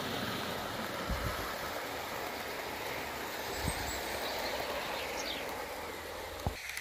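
Model train running on garden-railway track: a steady rumble of wheels on the rails, with a few short low knocks.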